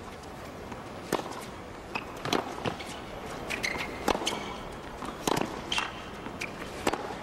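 Tennis rally on a hard court: a string of sharp pops of the ball off racket strings and court, with a few short shoe squeaks as the players change direction.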